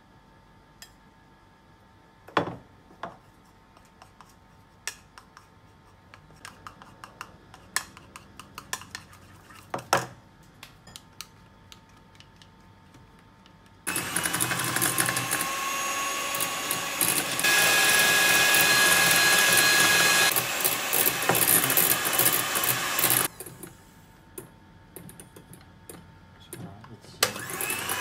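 Scattered light clinks and taps of a spoon against a bowl, then an electric hand mixer whipping cream in a glass bowl: its motor spins up about halfway through, runs faster for a few seconds, stops, and starts up again near the end.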